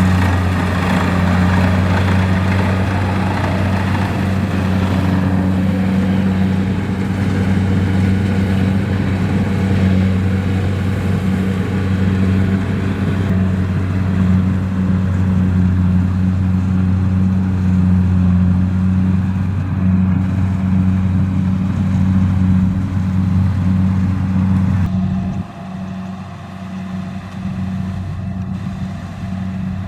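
Kubota DC-70 rice combine harvester's diesel engine running steadily under working load, a constant low drone with a noisy machinery rush on top. A few seconds before the end the sound suddenly becomes quieter and thinner, the drone carrying on.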